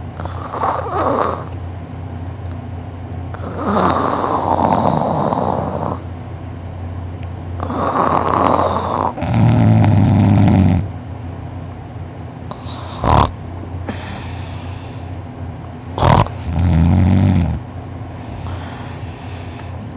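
A person snoring heavily in deep sleep: long noisy breaths alternate with low buzzing snores. Two sharp snorts come about two-thirds of the way through.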